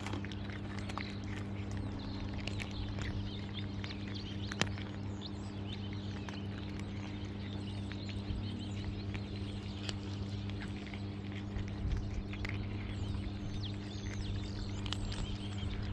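Cats crunching dry kibble close up: an irregular run of small, crisp clicks and crunches over a steady low hum.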